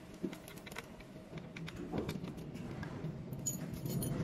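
Quiet handling sounds with scattered light clicks and taps: small screws being worked loose by hand from a styling chair's hydraulic base.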